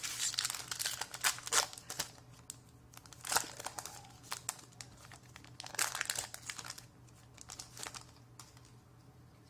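Magic: The Gathering booster pack's foil wrapper crinkling and tearing as it is opened by hand, in bursts of crackling during the first two seconds and again at about three and a half and six seconds, then only light rustles near the end.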